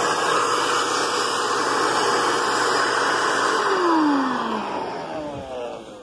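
Vacuum cleaner running steadily, sucking up metal drill shavings, then switched off about four seconds in, its motor winding down with a falling whine.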